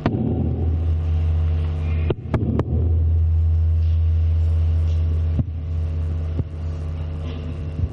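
Steady low electrical mains hum from a lecture-hall PA system, louder for the first five seconds or so. Several sharp knocks and pops come through the system, a pair of them about two and a half seconds in.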